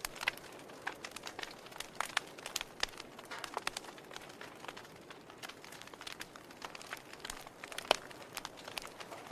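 Wood fire crackling in a fireplace: irregular snaps and pops over a soft steady hiss, with one sharper, louder pop near the end.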